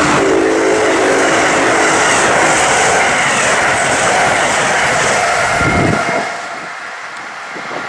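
Amtrak Northeast Regional train passing at speed, wheels on rail, with a humming tone while its Siemens ACS-64 electric locomotive at the rear goes by. The noise fades just after six seconds in as the train pulls away.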